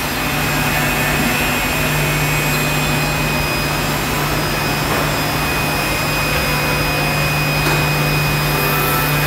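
Holztek Tectra 328 CNC panel saw and its dust extraction running steadily, with a constant low hum and a thin high whine over an even rush of air.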